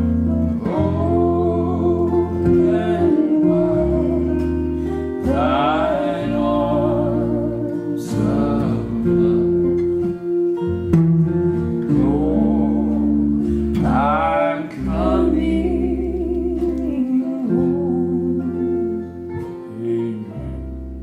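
Southern gospel song: singing with long held, wavering notes over instrumental accompaniment, dying away near the end.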